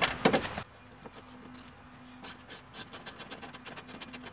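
Ratchet with a 7mm socket clicking in quick runs as the speaker's mounting screws are backed out, after a few louder knocks at the start.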